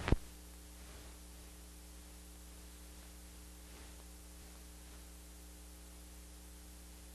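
Steady electrical hum with an even background hiss. A single sharp click comes right at the start.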